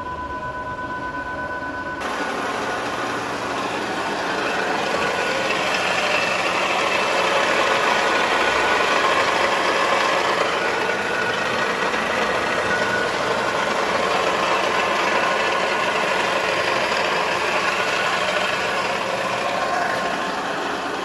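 A Hyundai HB20 with a manual gearbox running, a steady mechanical noise that grows louder over several seconds and then eases a little.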